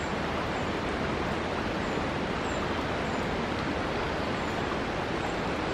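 Steady rushing of flowing river water, an even hiss-like wash.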